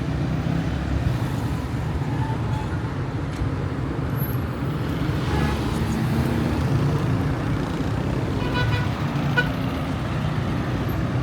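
City street traffic: vehicle engines running in a steady low rumble, with a short horn-like tone about three-quarters of the way through.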